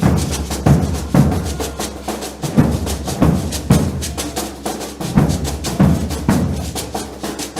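Maracatu percussion ensemble drumming: deep bass drum strokes, often in pairs, under a busy stream of snare-drum and rattle strokes.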